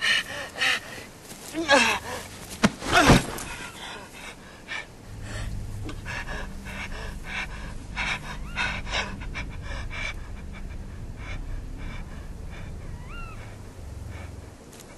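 A person gasping and panting hard in short, loud breaths, followed by a steady low drone with faint rustling. A short, thin high call sounds near the end.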